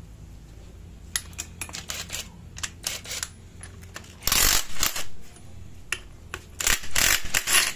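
Cordless impact wrench hammering to loosen a motorcycle clutch centre nut, in two loud bursts about two seconds apart. Before them come light metallic clicks and taps as the socket goes onto the nut.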